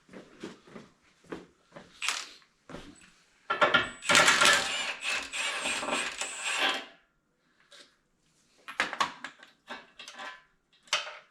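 Metal tools clinking and knocking on the grader blade's mounting bolts as a rusted bolt is worked loose, with a loud noisy stretch of about three seconds in the middle.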